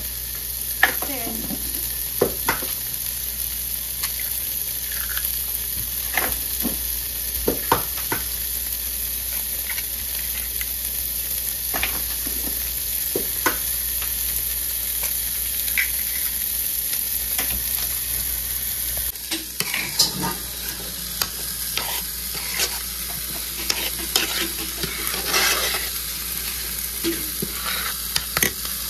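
Tomato and pepper sauce sizzling in a frying pan with eggs in it, with scattered sharp clicks of a metal spoon against the pan. In the last several seconds the spoon stirs and scrapes through the eggs and sauce, with more frequent clatter.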